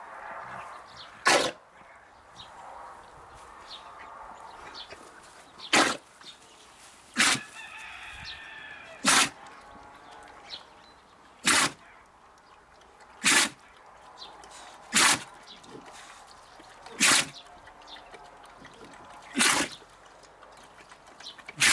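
A dog sneezing again and again: about ten short, sharp sneezes, one every two seconds or so.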